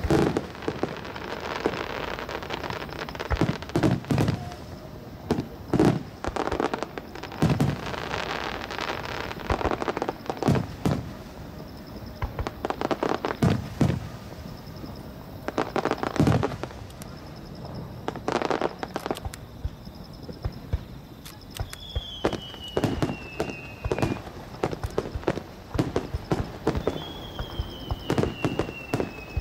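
Fireworks display: aerial shells going off in a long irregular series of booms and bangs, some followed by crackling. Two falling whistling tones sound near the end.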